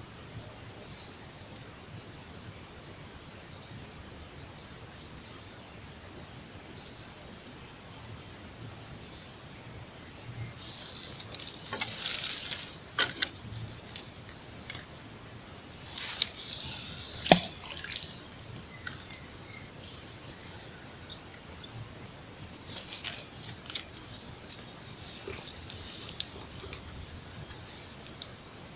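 Steady high-pitched chorus of insects, with a second insect call pulsing every couple of seconds. Between about 11 and 18 seconds in come a few brief splashes and drips of water, the sharpest about 17 seconds in.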